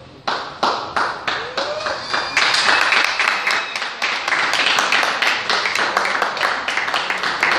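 A crowd clapping: separate claps at about three a second at first, then a little over two seconds in it thickens into dense applause, which fades out at the end.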